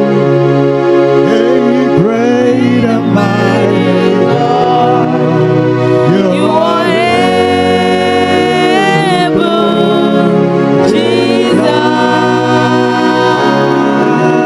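Gospel worship music: sustained organ-like keyboard chords with a solo singing voice gliding and wavering over them.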